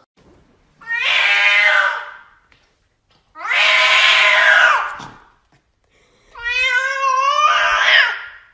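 A cat yowling three times, each a long, harsh, drawn-out call of one to two seconds; the last begins as a clear pitched wail and turns rough.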